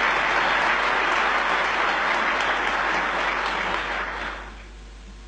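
A large audience applauding, steady at first and then dying away about four and a half seconds in.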